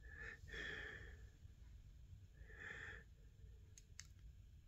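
Near silence with two faint breaths through the nose, then two faint clicks near the end.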